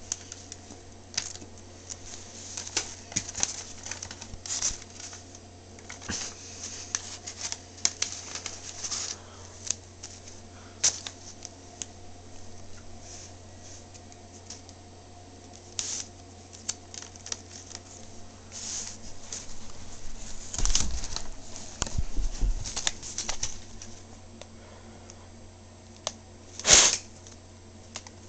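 Rolled-paper toy gun being handled: irregular paper rustling and crinkling with scattered light clicks and taps. A few heavier handling bumps come past the middle, and a louder rustle near the end.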